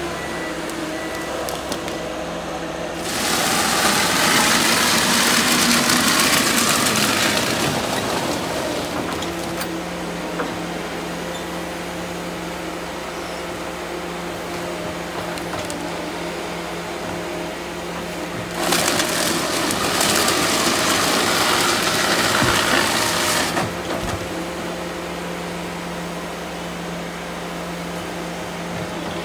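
Ponsse Ergo harvester running steadily on its diesel engine and hydraulics. Twice, for about five seconds each, it grows much louder and noisier as the harvester head feeds a log through its rollers and knives, stripping off the bark.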